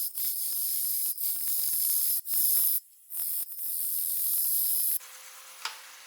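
Bowl gouge hollowing a green, very wet walnut bowl blank spinning on a lathe: a loud hiss of cutting in several passes broken by brief pauses. The cutting stops about five seconds in, leaving the lathe running with a faint steady hum and a single click.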